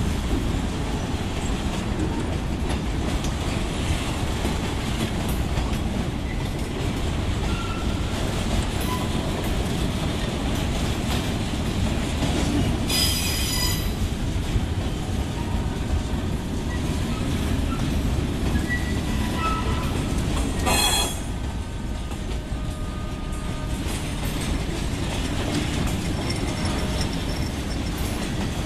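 Freight cars (tank cars and boxcars) rolling past at close range: a steady rumble of steel wheels on the rails. Brief high-pitched wheel squeals cut in, the loudest about halfway and about three-quarters of the way through.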